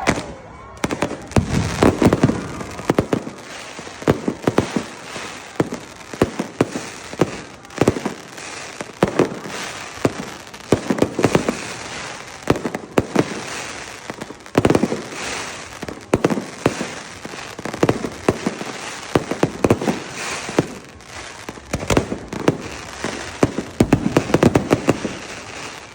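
Aerial fireworks bursting one after another in quick, uneven volleys, the loud booms mixed with crackling. The sound is continuous throughout.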